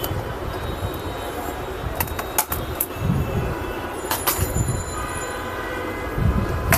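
Sharp clicks and taps of tools and plastic parts as a Lenovo G570 laptop is taken apart, half a dozen spread through, over steady background noise with a low rumble.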